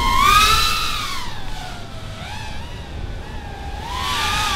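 ViFly R130 small FPV racing quadcopter flying overhead, its brushless motors and propellers whining as the pitch swings up and down with throttle. Loudest about half a second in, then easing off and rising again near the end.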